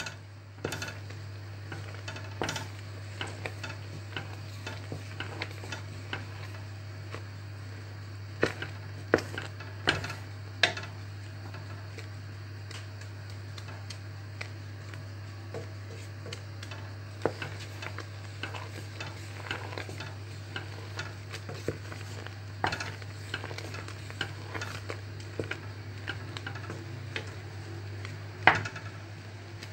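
Wooden spatula stirring boiling apple jam in a stainless steel pot: irregular knocks and scrapes of the spatula against the pot over the soft sizzle of the cooking fruit and sugar, with a steady low hum underneath.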